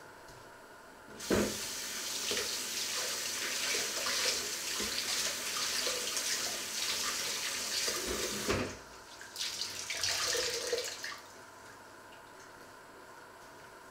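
Kitchen tap running into a stainless steel sink while something is rinsed under it by hand with a cloth. The water comes on about a second in, stops after about eight seconds, then runs again for about two seconds before being turned off.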